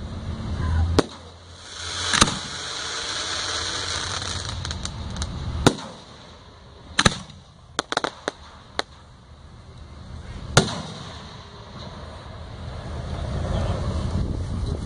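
Display fireworks fired from ground racks: a series of sharp bangs as shells launch and burst, with a hissing crackle a couple of seconds in and a quick run of smaller pops just past the middle.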